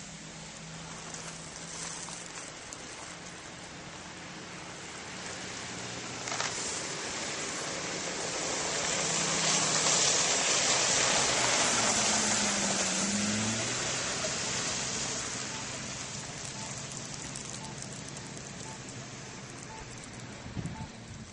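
Snowplow truck with a front plow blade driving past on a slush-covered road: tyre hiss and engine noise swell to a peak about halfway through, then fade as it goes by.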